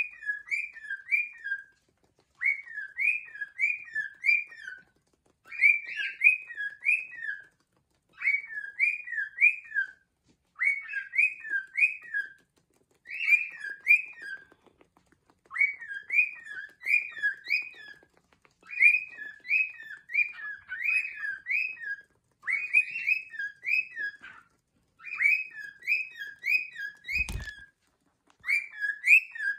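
Cockatiels chirping in short bursts of three or four quick rising-and-falling notes, a burst about every two and a half seconds. A single dull thump comes near the end.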